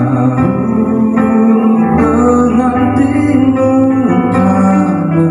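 A man singing a slow song through an Ashley handheld wireless microphone over guitar backing music.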